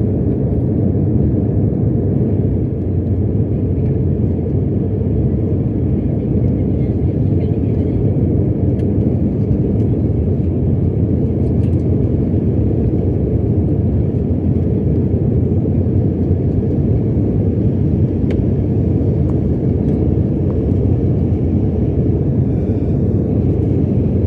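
Airliner taking off: a loud, steady low rumble of jet engines and rushing air that holds level throughout.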